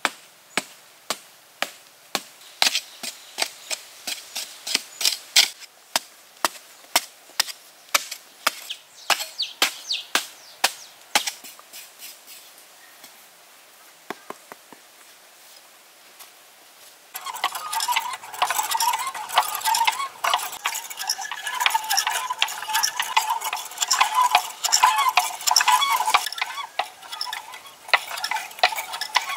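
A hand digging tool chopping into packed dirt, one or two strokes a second, for about the first twelve seconds. After a quieter pause, from about seventeen seconds in, a small bamboo-and-wood mechanism keeps up a dense, rapid clicking and clacking.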